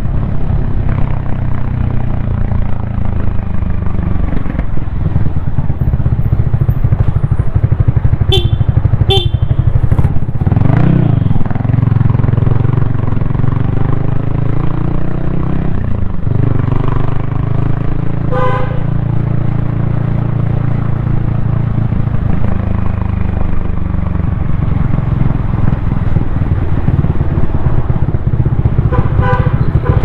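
Yamaha XSR155's single-cylinder engine running under way, heard from the rider's helmet, its pitch rising and falling with the throttle. Vehicle horns toot: two short beeps about eight seconds in, another about halfway, and more near the end.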